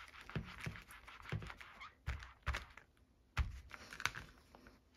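Clear acrylic stamp block with stamps being rubbed and pressed on a Stampin' Up! Simply Shammy chamois in its plastic case to clean off pink ink: a soft scrubbing hiss broken by about half a dozen light knocks and clicks.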